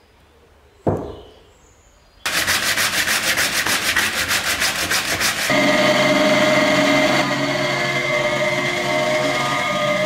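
A single sharp knock about a second in, then a fast rhythmic scraping for about three seconds. Then a drill press runs with a steady whine while its bit bores through the wooden scythe snath and grip.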